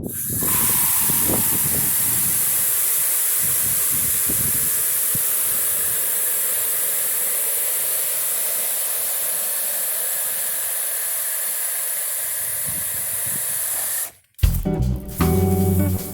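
Steady hiss of water spraying from a hose nozzle onto a push reel lawn mower to wash off dirt, cutting off suddenly near the end, where music with a beat starts.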